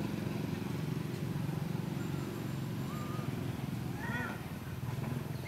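Faint, short squeaky calls from macaques, once about two seconds in and a small cluster about four seconds in, over a steady low rumble.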